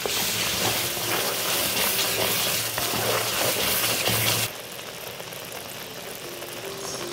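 Ground garlic sizzling as it fries in hot sesame oil in a small kadai, a dense crackling hiss that drops suddenly to a much quieter sizzle about four and a half seconds in.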